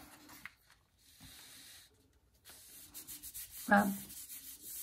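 Yellow construction paper being folded over, a short dry swish, then a hand rubbing back and forth across the folded sheet in a longer stretch of dry papery scraping, pressing the wet paint onto the other half.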